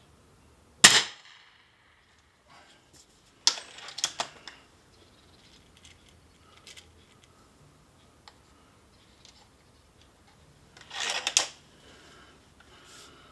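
A .177 Gamo Hunter 440AS spring-piston break-barrel air rifle fires once about a second in, a sharp crack. Then come two bursts of clicks and clatter, a few seconds in and near the end, as the rifle is handled between shots.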